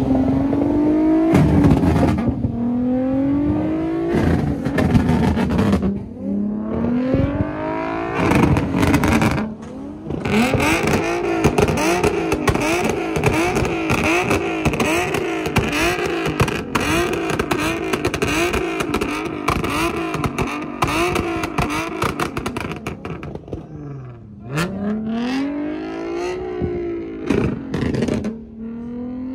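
A performance car's engine revved hard again and again. It starts with long rises and falls in pitch, then a long run of quick throttle blips about two a second, and ends with one big rev up and back down near the end.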